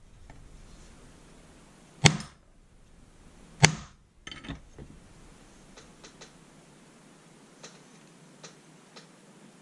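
Two sharp hammer blows, about a second and a half apart, from a small hammer peening rivets on a steel spring balance resting on a steel block, followed by a couple of lighter knocks and a few faint clicks.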